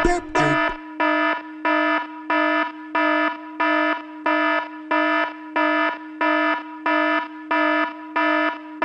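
A buzzy electronic alarm tone at one fixed pitch, pulsing on and off evenly about three times every two seconds.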